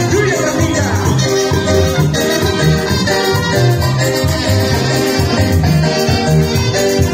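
Latin American dance music played by a band, with a steady bass beat under sustained melodic notes.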